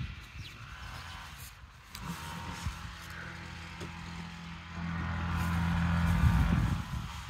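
A car engine running with a steady low hum from about two seconds in. It gets louder for about two seconds past the middle and drops back near the end.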